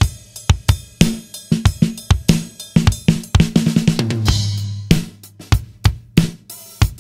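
Acoustic drum kit played in a steady groove of kick, snare and hi-hat strikes, close-miked. A little past the middle comes a run of low, ringing tom hits, followed by a bright cymbal wash and a busy flurry of strokes.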